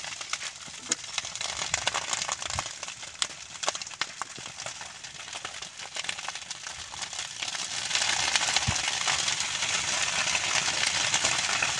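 Dry grass and brush burning, with many sharp crackles and pops. About eight seconds in, the sound grows louder and thickens into a dense, steady hiss.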